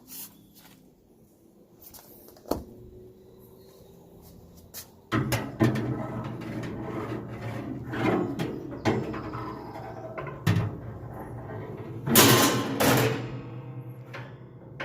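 Metal grill grates being lowered into a pellet grill's barrel, with knocks, clanks and scraping of metal on metal that grow busier and louder after a quiet start.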